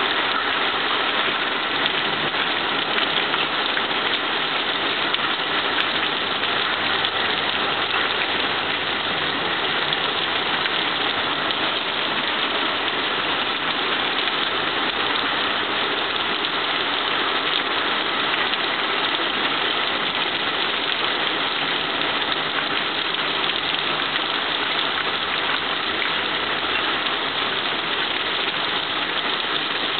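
Heavy thunderstorm rain pouring down steadily, an even rush that holds at one level throughout.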